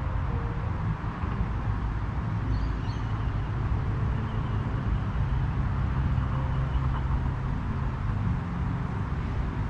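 Steady low rumble of distant road traffic, with a few faint high chirps about two and a half seconds in.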